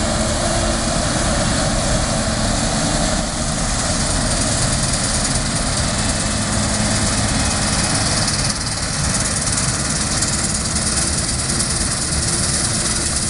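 Claas combine harvester running steadily under load as it cuts and threshes standing rapeseed: a loud, even engine and machinery noise with faint steady tones, dipping slightly twice.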